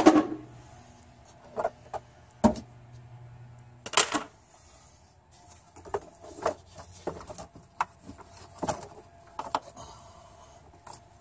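Scattered clicks, knocks and rustles of hand work on rubber coolant hoses and hose clamps in a car engine bay, the loudest knock right at the start and another about four seconds in.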